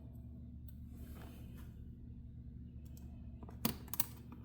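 Small metallic clicks of fine-tipped tweezers picking at tiny screws in a laptop's plastic bottom case, with a few sharp ticks about three and a half seconds in, over a steady low hum.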